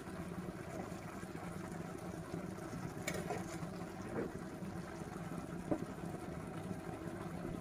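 Steady low hum of the stove flame under a pan of simmering water and boiled vermicelli, with a few faint taps of a steel spoon against the pan.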